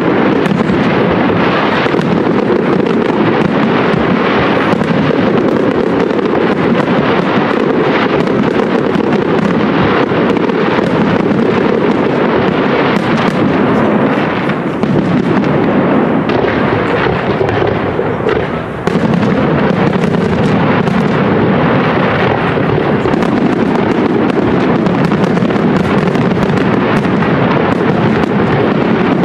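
Professional fireworks display: a dense, continuous barrage of aerial shells bursting and crackling, with short lulls about 15 and 18 seconds in.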